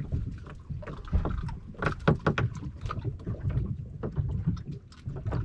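Irregular knocks, clicks and rustles of a snapper being handled and unhooked aboard a small fishing boat, over a low rumble.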